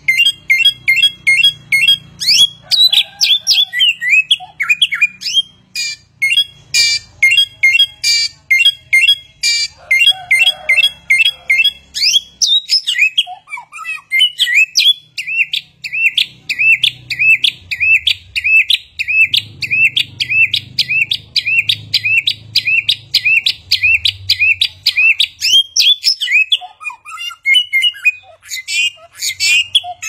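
Caged samyong songbird singing loudly: fast runs of sharp chirps and whistled notes that keep changing phrase. About halfway through it settles into a long steady series of repeated upswept notes, about three a second, before switching to new phrases near the end.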